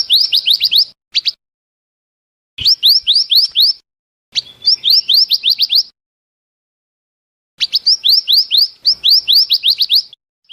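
Recorded lure call of a mantenan (scarlet minivet): four quick bursts of about half a dozen sharp rising whistles each, separated by short silences.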